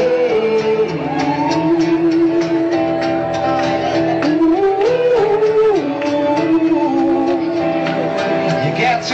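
Live band playing a song: a held, gliding vocal melody over a steady drum beat.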